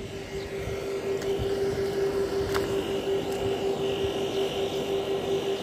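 A steady motor drone at one constant pitch, growing a little louder about a second in, with a faint high whine joining it about halfway through.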